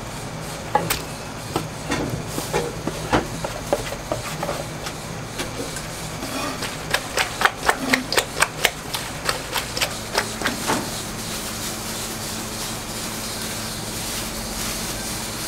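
Kitchen knocks and clatter from utensils striking hard surfaces, with a fast run of sharp knocks, about four a second, for a few seconds a little past the middle. About ten seconds in, a steady hiss with a low hum underneath takes over.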